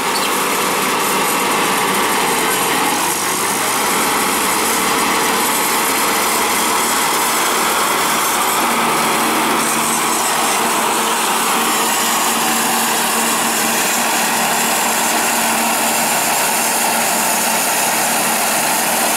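Kubota B7500 HST tractor's 21-horsepower three-cylinder diesel running steadily, driving a 72-inch Bush Hog finishing mower whose spinning blades are cutting grass.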